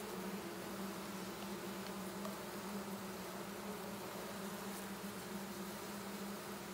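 A honey bee swarm buzzing in a steady, even hum.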